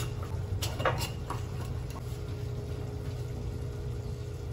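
A metal spoon clinking on glass spice jars and a steel pot as ground spices are scooped in, a few sharp taps in the first second and a half, over a steady low hum.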